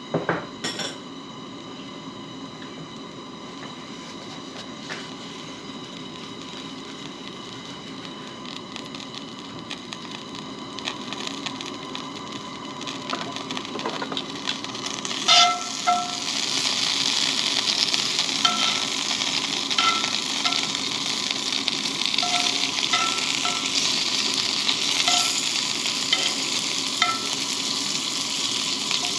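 Bacon and a pat of butter substitute sizzling in a 12-inch cast-iron skillet over a propane camp-stove burner, the sizzle growing markedly louder about halfway through as the pan heats up.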